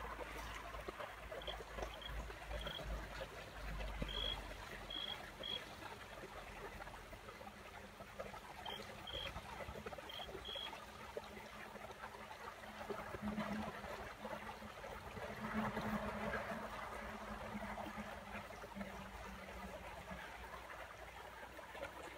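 Faint outdoor ambience: a steady rushing hiss, with short high chirps in small groups during the first half.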